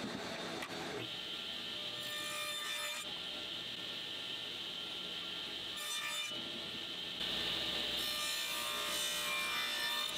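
Table saw cutting shallow grooves along mahogany strips with the blade tilted, a run of short passes, the sound shifting every second or two.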